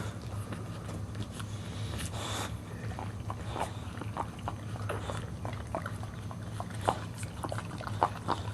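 Mother dog and newborn puppies during a whelping: a run of short, sharp, irregular clicks and smacks over a low steady hum, the loudest near the end.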